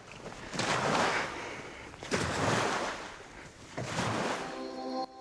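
Three swells of rushing, surf-like noise, each rising quickly and then fading. A held music chord of several tones comes in near the end.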